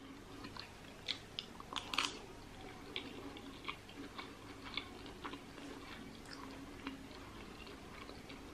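A person chewing a soft mouthful of rice and red pepper with the lips closed, with faint wet mouth clicks throughout and a couple of sharper clicks about one and two seconds in.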